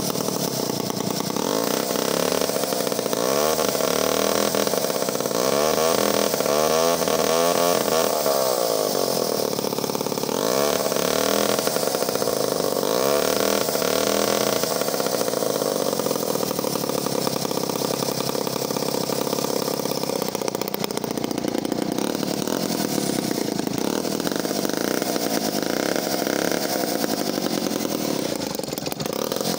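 Clinton D55 vintage 73cc two-stroke chainsaw engine running, revved up and down several times in the first half, then running more steadily. The owner thinks it is not happy to idle and presumes the Carter carburettor wants stripping out.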